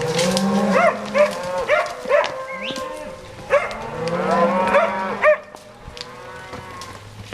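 A herd of cattle mooing and bawling, many calls overlapping, some long and low, others short and higher-pitched. The calling dies down about five seconds in.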